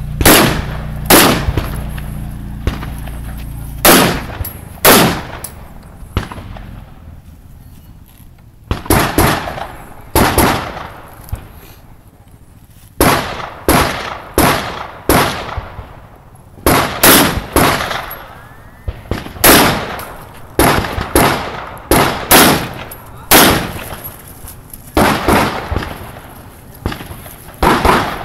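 Semi-automatic rifle shots fired one after another at an irregular pace, often in quick pairs, each with a short echoing tail, with two brief lulls between strings of fire.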